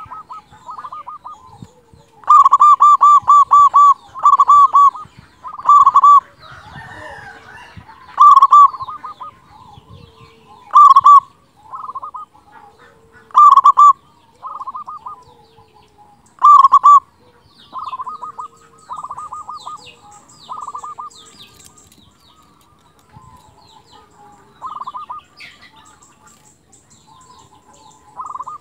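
Zebra dove (perkutut) cooing: a run of short rolling phrases, each a quick trill of notes on one pitch. The loud phrases come every two to three seconds, with softer ones between. Faint high chirps of small birds come in near the end.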